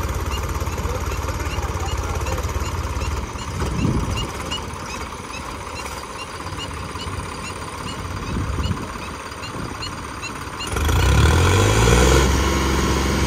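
Tractor diesel engine running steadily, then revving up near the end, its pitch rising and the sound getting louder.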